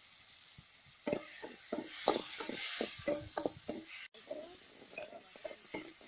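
Steel ladle stirring and scraping onions and tomatoes frying in a metal pan, the vegetables sizzling. The stirring strokes start about a second in.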